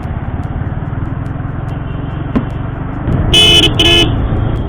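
Yamaha motorcycle engine running under way with road noise, and a vehicle horn beeping twice in quick succession about three and a half seconds in.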